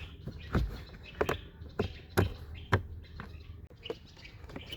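A series of light plastic clicks and knocks, about five in the first three seconds and a softer one later, from a car glove box being fitted as its hinge pins are pushed into their mounts.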